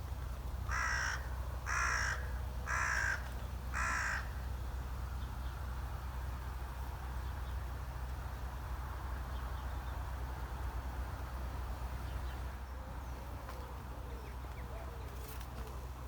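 A crow cawing four times, about one harsh caw a second, then faint birdsong later on over a steady low hum.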